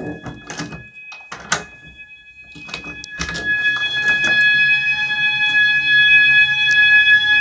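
Fire alarm sounding a steady high-pitched tone, faint at first among a few knocks and thuds, then much louder from about three seconds in.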